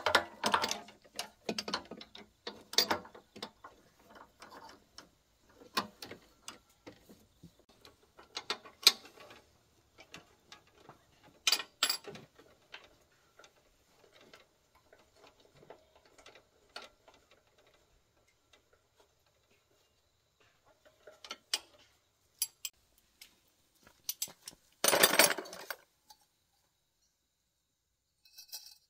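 Metal hand tools clicking and clanking against a small diesel engine's metal parts as it is taken apart, in scattered strokes with pauses and a longer burst of rattling near the end.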